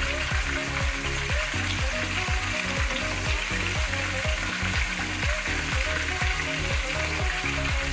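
Pork neck bones sizzling steadily in hot oil in a stockpot as they brown.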